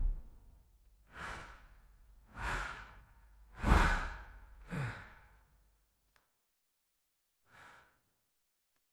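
A person sighing and breathing out heavily, five breaths spread over several seconds, the middle one loudest and the fourth ending in a voiced, falling sigh.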